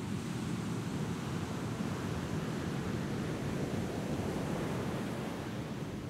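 Big-wave ocean surf breaking and washing, a steady rushing noise with some wind.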